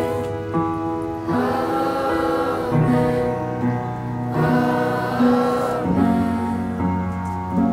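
A group of boys' voices singing a song together over instrumental accompaniment, moving through a series of long held notes.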